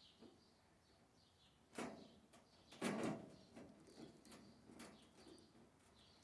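Two short metallic clanks of wire and pliers against a wire-mesh cage, about two and three seconds in, the second louder, over faint bird chirps repeating in the background.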